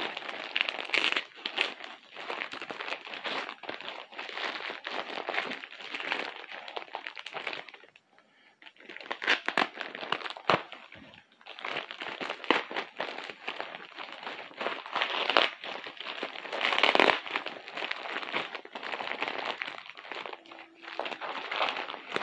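Packing material crumpled and rustled by hand while a package is unwrapped: dense, irregular crinkling with a brief lull about a third of the way through.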